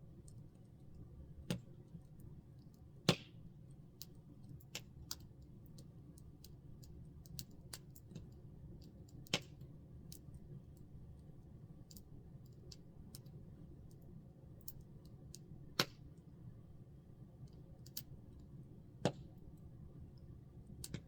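Campfire crackling: irregular sharp pops and small ticks of burning wood, a few louder pops among them, over a faint steady low hum.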